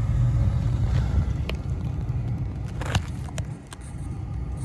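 A few sharp clicks and a knock from sheet-metal furnace access panels being handled and fitted, over a steady low rumble.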